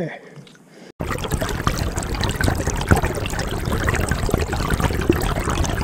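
Water splashing and trickling close by: an even wash full of small splashes that starts abruptly about a second in.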